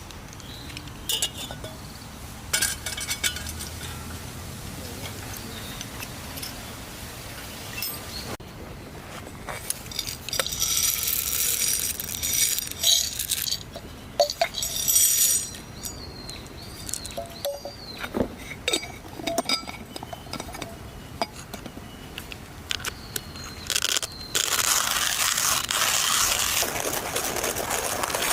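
Small items of camp coffee gear being handled, with scattered light clinks and knocks of glass and metal, and stretches of hissing noise in between.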